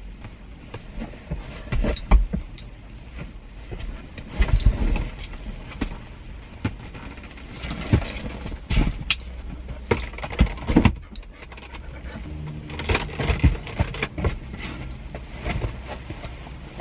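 A dog scrambling over the back seat of a parked car toward the front: irregular thumps and knocks of its paws and body against the seats, over a low steady rumble.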